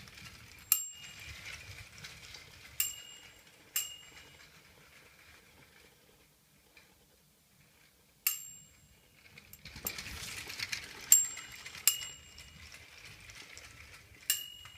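Lionel wind-up Mickey Mouse handcar running on tinplate O gauge track, its clockwork whirring as it comes and goes, with about seven sharp metallic pings that each ring briefly.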